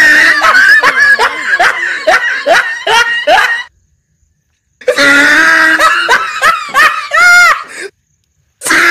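Loud, hearty laughter: a rapid ha-ha-ha run, then after a sudden cut to silence a second spell of laughing that ends in a rising-and-falling whoop. A second short gap of dead silence comes near the end.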